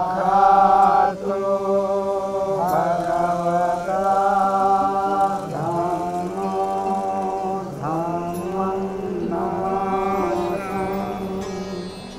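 Buddhist mantra chanting: a voice intoning in repeated phrases a few seconds long over a steady low drone.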